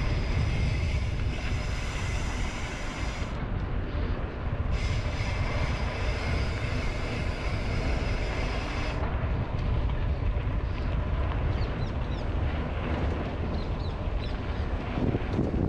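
Mountain bike ridden along a dirt trail: steady wind rumble on the camera's microphone with tyre and trail noise. A high ratcheting buzz from the rear freehub, heard while coasting, runs for the first three seconds or so, stops, and comes back from about five to nine seconds in.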